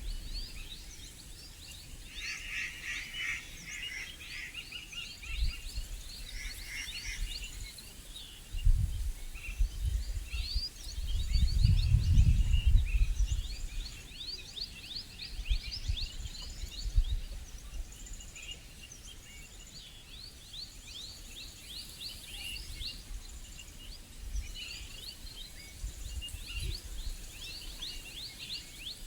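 Many forest birds chirping and calling at once in quick, high, repeated notes. Bursts of low rumble come and go several times, the loudest about a third of the way in.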